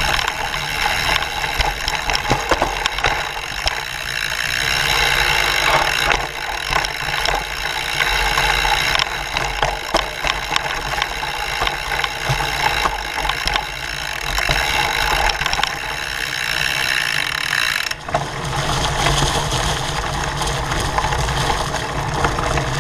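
Mountain bike riding over a dirt trail covered in dry leaves, heard from a camera mounted on the frame: tyre noise on leaves and dirt with the bike rattling and clicking over the bumps. The noise changes abruptly a few times.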